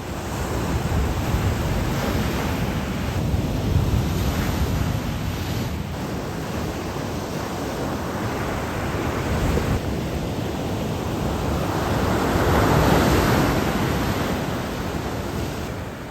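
Ocean surf breaking and washing on the shore, with wind buffeting the microphone. The rush swells and ebbs, loudest about three-quarters of the way through as a wave comes in.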